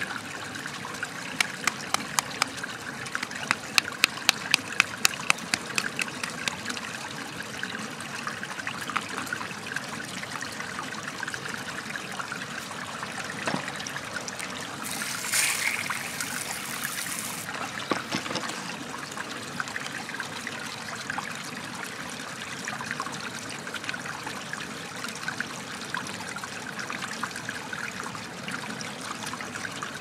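Steady trickling water, with a run of sharp taps, about three a second, in the first few seconds, and a brief splashing rush about halfway through as water washes over the crystal.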